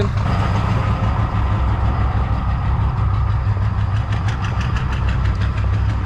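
Ford Tremor pickup's engine idling steadily.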